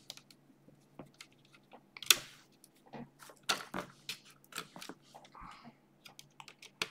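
Irregular small clicks and scratches of fingers and a small screwdriver working on the parts inside an opened mini PC, with one sharper click about two seconds in.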